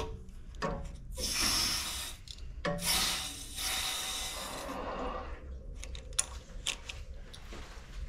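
Water heater temperature-and-pressure relief valve opened by hand, hissing in two bursts as air and water rush out through it into the discharge line, purging air from the newly filled tank. A few faint clicks follow near the end.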